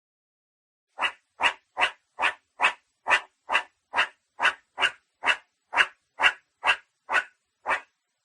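An animal giving a fast, regular series of about seventeen short calls, a little over two a second, starting about a second in.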